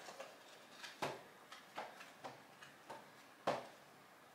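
Pages of a large hardcover book being flipped through by hand: a string of soft page flicks at an uneven pace, the clearest about three and a half seconds in.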